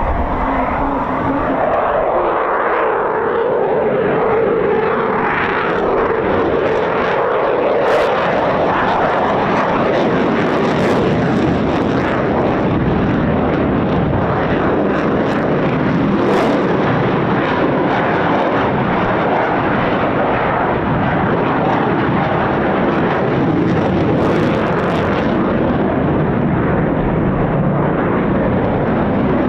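Eurofighter Typhoon's twin turbofan jet engines, a loud continuous roar as the fighter flies its display. In the first few seconds a pitch in the roar falls as the jet passes.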